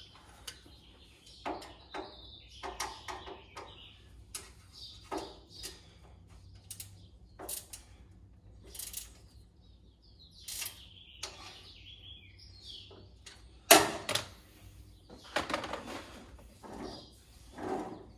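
Irregular metal clinks and knocks from handling bolts, tools and a new swivel caster on a steel tool cart, with one louder clank about three-quarters of the way through. Birds chirp faintly in the background.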